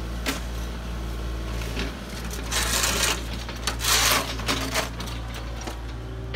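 Kubota KX040-4 mini excavator's diesel engine running steadily while its bucket presses debris down in a steel dumpster. There are two loud bursts of crunching and clattering wood and metal, about two and a half seconds and four seconds in, with scattered knocks between.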